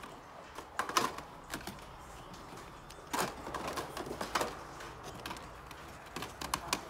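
Scattered light clicks and plastic rattles of blister-packed die-cast toy cars being handled on store display pegs, several sharp taps a second or so apart.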